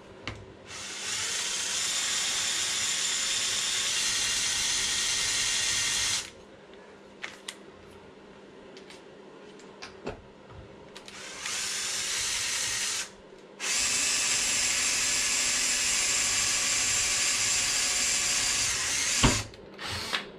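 Handheld power drill boring holes into a metal plate on an RC car chassis, running steadily in three bursts: about five seconds, under two seconds, then about six seconds. A few light clicks fall between the runs, and there is a sharp knock near the end.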